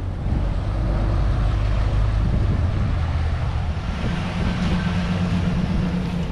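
Boat's single outboard motor running steadily as the boat pulls away from the dock. About four seconds in, the sound changes to a pickup truck's engine running as it tows an empty boat trailer.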